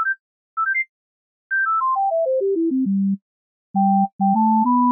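Ocarina notes from a marble-music animation, pure and flute-like. Two quick rising runs of three notes lead into a descending scale. From about four seconds in, held melody notes sound over lower notes.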